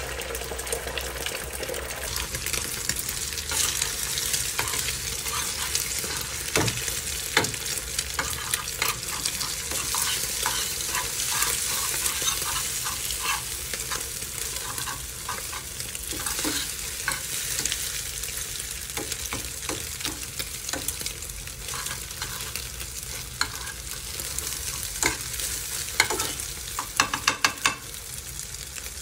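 Beaten eggs sizzling in a metal frying pan while being scrambled with a spatula, which scrapes and taps against the pan. A quick run of taps comes near the end.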